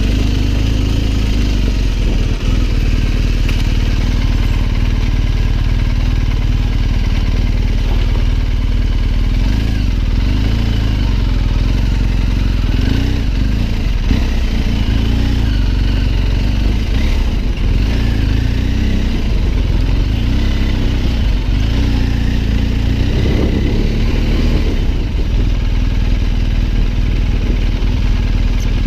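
BMW R 1250 GS Adventure's boxer-twin engine running under way at low speed, its revs rising and falling.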